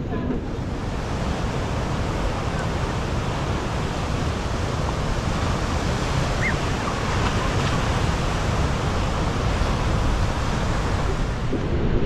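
Storm surf breaking on a sandy beach: a continuous, steady rush of rough waves.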